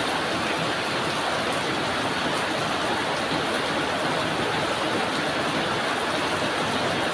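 Steady drizzling rain: an even, unbroken hiss of fine raindrops with faint scattered ticks.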